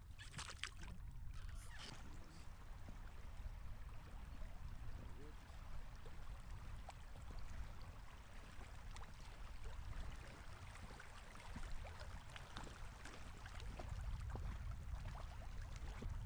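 Raft oar blade lifting out of the water, splashing and dripping for the first couple of seconds, then soft lapping and trickling of river water against the raft over a low steady rumble.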